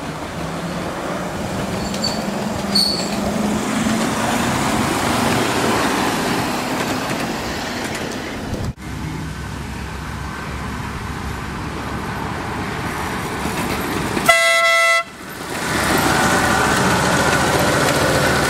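Ride-on miniature diesel locomotive running on its scale track with a steady rumble of wheels on rail, and one short horn toot, about half a second long, around fourteen seconds in that starts and stops abruptly and is the loudest sound.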